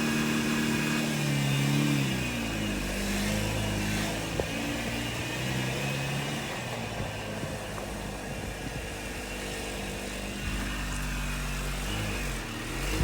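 A 2019 Jaguar Land Rover's engine running: the revs fall about a second in and settle to a steady lower speed, with a faint steady high whine above it. This is the noise the owner calls weird.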